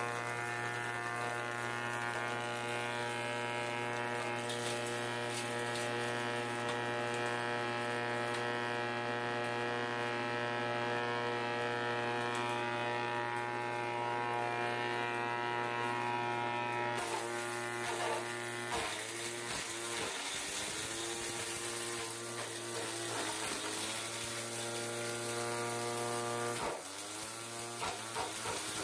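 Electric forage chopper-grinder (Trapp) running with a steady motor whine. From about halfway its pitch dips again and again as the motor is loaded by material being fed into the blades.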